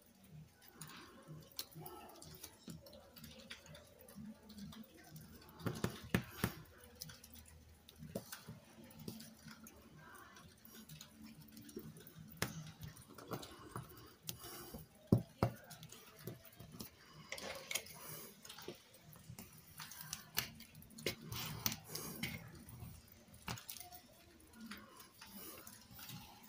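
Faint paper-handling noise: hands pressing and rubbing a glued cardstock panel down onto a layered card on a cutting mat, with scattered small taps and clicks and one sharper click about fifteen seconds in.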